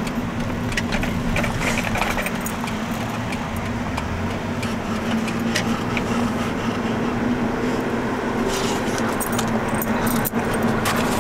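Steady road, engine and wind noise inside a moving car with a rear window open, with light metallic jingling now and then.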